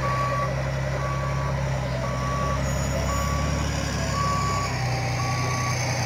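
LGMG MT60 mining dump truck's reversing alarm beeping, six half-second beeps about once a second, over the steady drone of its diesel engine.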